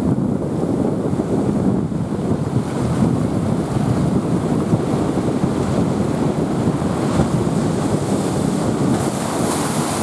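Rough, typhoon-driven surf: a steady, heavy wash of waves with wind buffeting the microphone, and a brighter hiss near the end.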